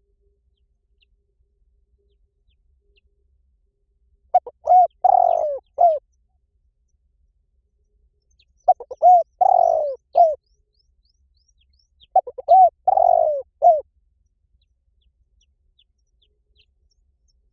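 Spotted dove cooing: three song phrases about four seconds apart, each a few short coos around one longer, drawn-out coo.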